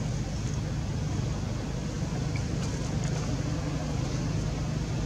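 Steady low rumble of background noise, with no distinct event.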